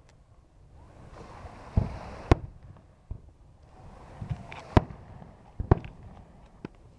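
Fireworks going off: a handful of separate booms and sharp cracks spread over several seconds, two of them close together near the end.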